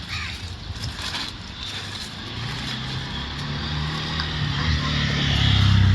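A motor vehicle's engine running as a low hum that grows steadily louder over the last few seconds.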